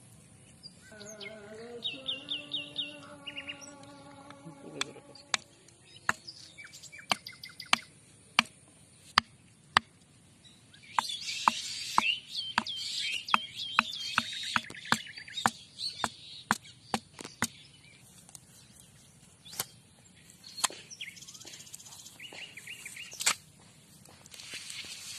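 Birds chirping in quick repeated notes, with a run of sharp, irregular clicks and taps that are the loudest sounds through most of the stretch.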